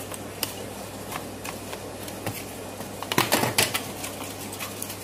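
Packaging being torn open and crinkled by hand to get a pair of tights out: scattered clicks and rustles, with a louder burst of crackling about three seconds in. A steady low hum runs underneath.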